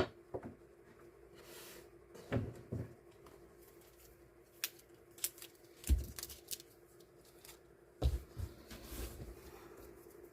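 Die-cut stickers and their plastic packaging being handled and sorted on a desk: scattered taps, clicks and soft rustles, the sharpest tap at the very start, over a steady low hum.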